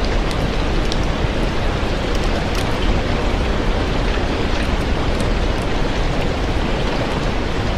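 Steady heavy rain, a dense unbroken hiss, with scattered small sharp ticks through it.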